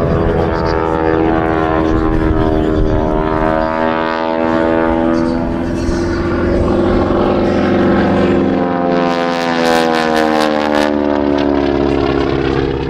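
Radial piston engines of a formation of North American SNJ-2 warbirds flying past, a loud propeller drone whose pitch bends up and then slides down as the aircraft go by.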